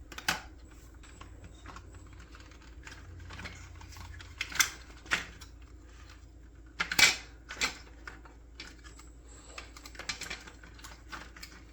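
Hard plastic parts of a Nerf blaster clicking and knocking as they are handled during disassembly: scattered separate clicks, the loudest a close pair about seven seconds in.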